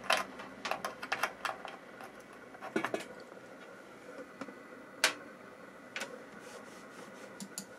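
Scattered sharp clicks and light knocks as a USB mouse plug is pulled out and pushed into a desktop PC's front USB 3.0 port and the mouse is handled, with the loudest click about five seconds in. A faint steady hum of the running computer lies beneath.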